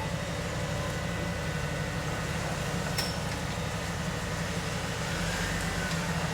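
Off-road 4x4's engine running steadily, with a single sharp click about halfway through.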